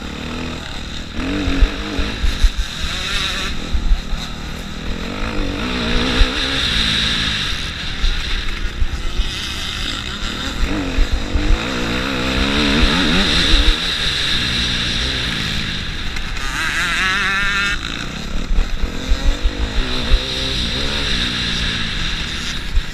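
Motocross bike engine heard from the rider's own on-board camera, revving up and falling back again and again through the gears as it is ridden hard round the dirt track. There is a constant low rumble underneath and one sharp rising rev about two-thirds of the way through.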